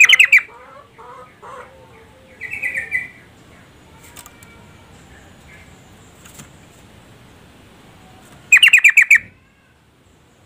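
Female yellow-vented bulbul giving quick chattering calls: a burst of rapid notes at the start, a shorter chatter about two and a half seconds in, and another burst of about six fast notes near the end.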